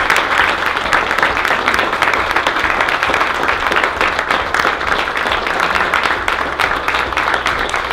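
A roomful of guests applauding: dense, steady clapping that holds at one level throughout.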